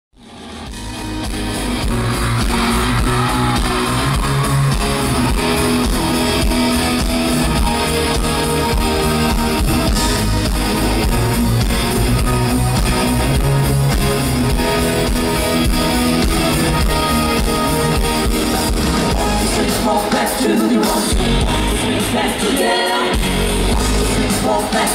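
Loud live pop-dance music over an arena sound system, recorded from the audience: heavy bass under a full band mix with singing. It fades in over the first second or two, and the bass drops out briefly twice near the end.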